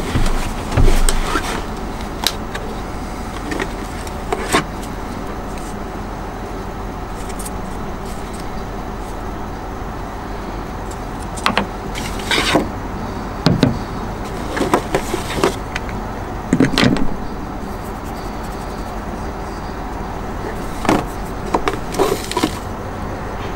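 Cardboard box and plastic wrapping handled and opened by hand: bursts of crinkling and rustling, most of them in the second half, over a steady low background rumble.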